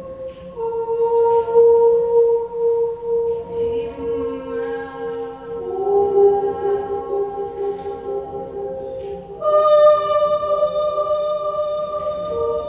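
Electroacoustic music: layered long held tones that shift to new pitches every few seconds, with a brighter, louder tone coming in about three-quarters of the way through.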